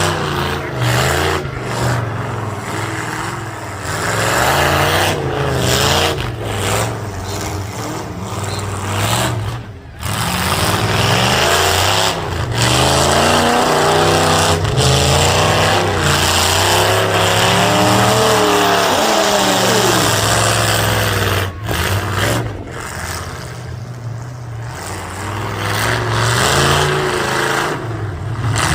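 Several demolition derby cars' engines revving hard, rising and falling in pitch over and over.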